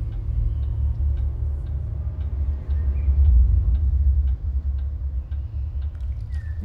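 Deep, steady rumbling drone with faint regular ticking over it, a tense underscore in the film's soundtrack.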